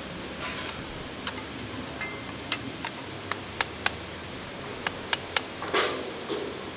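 Hand tools clinking and tapping against steel transmission parts: about a dozen sharp, irregular metallic clicks, with a short ringing metal scrape near the start and a longer scrape near the end.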